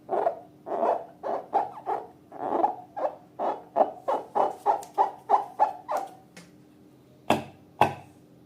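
Slime being squeezed through a rubber balloon: a run of short pitched squeaks, about three a second and getting quicker, that stop about two thirds of the way in. Two sharp clicks follow near the end.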